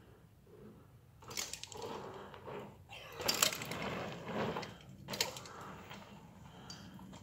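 Mountain bike rolling over a dirt pump track: tyres crunching on the packed dirt and the bike rattling, in irregular bursts that start about a second in and are loudest midway.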